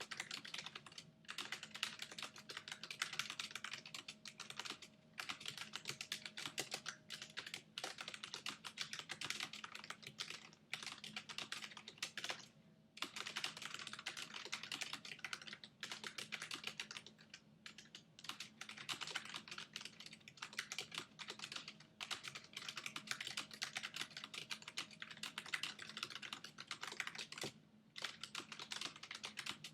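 Fast, continuous typing on a Logitech G815 mechanical keyboard with GL Tactile switches: rapid key clicks with a few brief pauses between runs.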